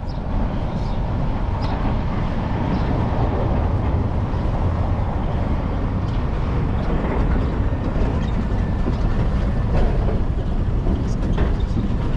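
Wind buffeting an action camera's microphone: a steady, loud rumbling noise.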